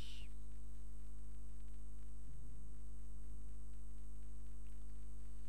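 Steady electrical mains hum with a stack of even overtones, picked up by the recording microphone.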